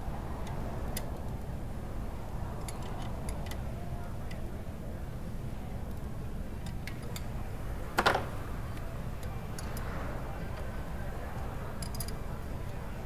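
Scattered light clicks and taps from hand work on a VW ALH TDI engine during timing belt installation, with one sharper knock about eight seconds in, over a steady low hum.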